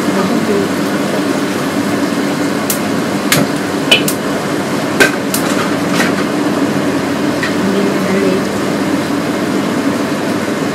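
Steady kitchen hum with a gas burner lit under a wok, broken by a handful of sharp knocks from kitchen utensils being handled on the counter between about three and six seconds in.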